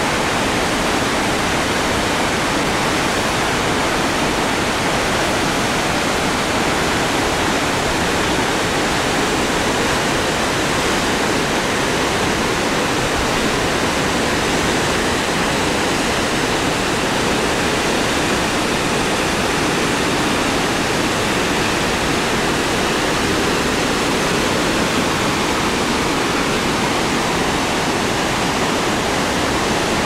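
Li Phi waterfall on the Mekong: a big volume of whitewater pouring through rock channels, heard as a steady, even rushing noise.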